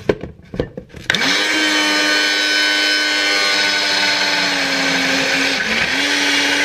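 Personal bullet-style blender: a few knocks as the cup is pressed onto the base, then about a second in the motor starts and runs steadily, blending chickpeas and tahini into hummus. Near the end the motor briefly drops in speed and then picks back up.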